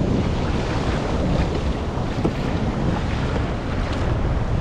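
Steady wind rumbling on the microphone over choppy open sea, with waves washing around a small fishing kayak.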